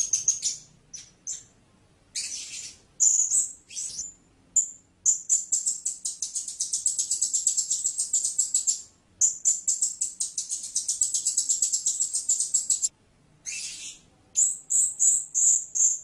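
Blue-crowned hanging parrot calling with high, thin, sharp notes. A few short calls and hissy screeches come first, then a rapid chattering run of many notes a second lasting about eight seconds with one brief break, then separate short chirps near the end.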